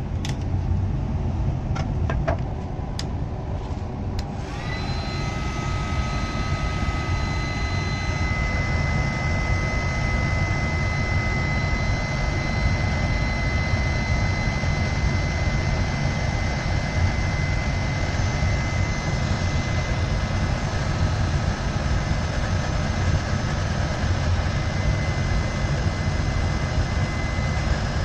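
Steinel heat gun running steadily, its fan blowing hot air. About four seconds in, a steady high whine from the gun comes in and holds.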